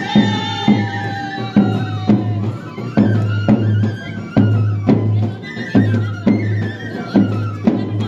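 Traditional Himachali wedding band playing folk music: drums beating about twice a second over a low steady drone, with a wind instrument holding one long note that sinks slightly over the first two seconds.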